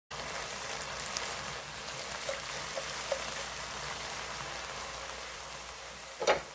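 Stir-fried perilla leaves sizzling steadily in a pan, with faint scattered crackles. A brief, louder burst comes just before the end.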